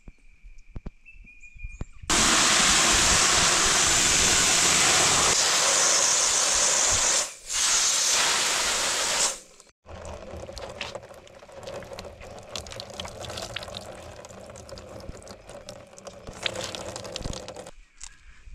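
Water running hard, starting suddenly and cutting off about nine seconds in, followed by a quieter stretch of rustling and clicking handling sounds.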